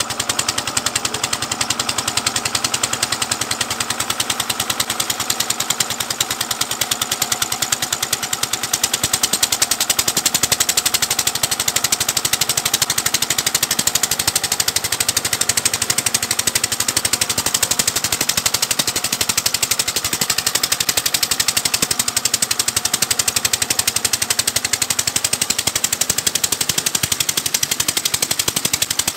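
Petter diesel engine running a tubewell pump steadily, its exhaust giving rapid, even chugging beats, over the rush of water gushing from the 6-inch outlet pipe into the tank.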